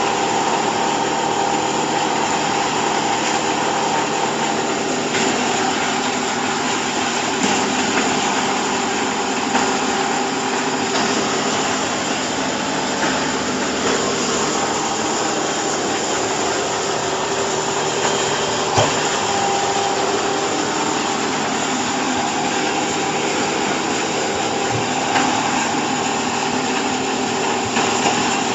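Hydraulic chopped-hay bagging baler running with a steady mechanical hum of several held tones, and an occasional brief knock.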